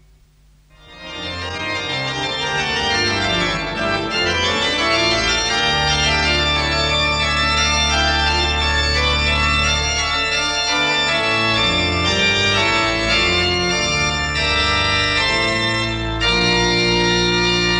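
Organ music of the closing theme over the end credits. It starts about a second in with long held bass notes and quicker notes above, and a fuller chord sounds near the end.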